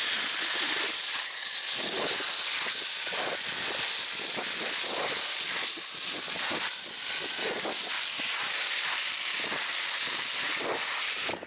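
Meguiar's Foam Cannon Pro on a pressure washer spraying snow foam: a steady loud hiss that cuts off suddenly near the end.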